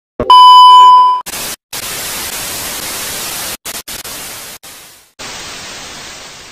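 TV test-card and static sound effect: a click, then a loud, steady test-tone beep lasting about a second, followed by television static hiss that cuts out briefly several times.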